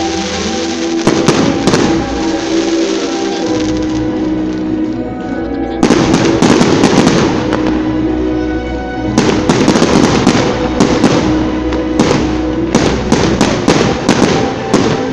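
Fireworks going off in rapid clusters of bangs and crackles, with a quieter lull of a few seconds before a dense run starts about six seconds in, over steady background music.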